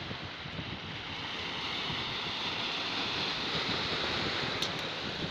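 Small sea waves washing and splashing over shoreline rocks, with wind buffeting the microphone. A brief click about four and a half seconds in.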